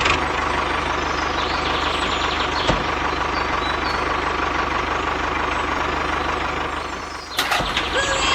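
Tractor engine idling steadily. It dips briefly about seven seconds in, then comes back with a few sharp clicks.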